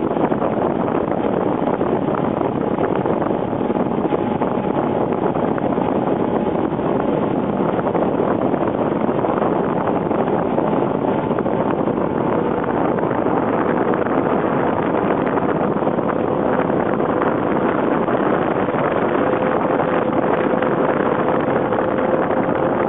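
Small outboard motor driving a Gheenoe along at a steady speed, with wind rushing over the microphone. A faint engine tone rises slightly in pitch in the second half.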